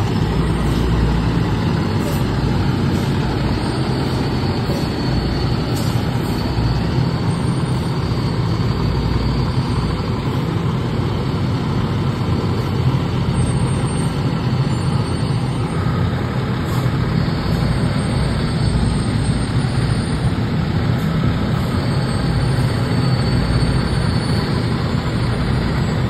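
Diesel engine of an SVI heavy rescue fire truck running steadily at low revs, a loud, low, even rumble, as the truck creeps along close by.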